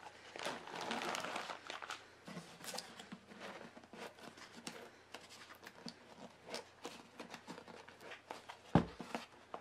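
Plastic wrap and paper packaging on a cardboard tube being handled: irregular crinkling and rustling with small taps, and one sharp thump near the end.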